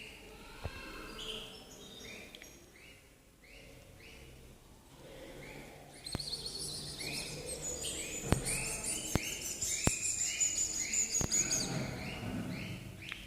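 European goldfinches calling and singing: a string of short rising chirps repeated about twice a second, joined about six seconds in by a rapid high twittering song that runs for several seconds. A few sharp clicks sound during the song.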